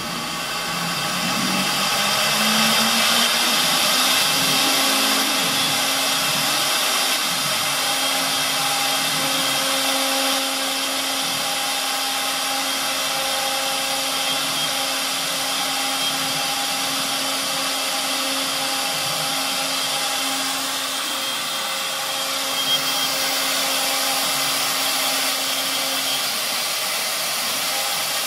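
CNC router's two spindles engraving letters into a wooden sheet: a steady high whine over a hiss of cutting and rushing air. The whine rises in pitch over the first few seconds, then holds.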